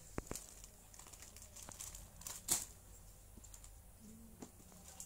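Silk saree being handled and unfolded: scattered soft clicks and rustles of the cloth, with one sharper rustle about halfway through.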